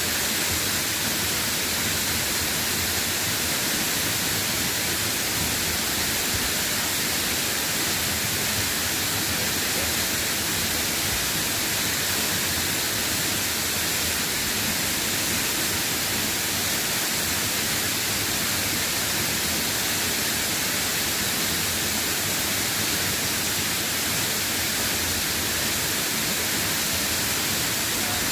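Steady, even hiss of light drizzling rain.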